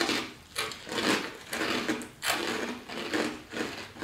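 Dry multicoloured fruit-flavoured cereal crispies being chewed, a steady crunching of about two chews a second.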